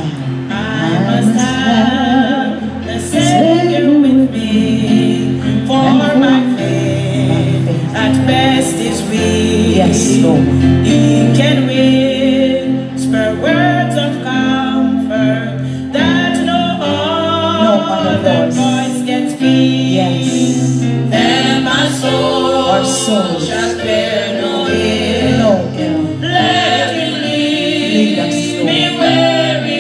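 Gospel song with singing voices and a backing band, played through a church sound system.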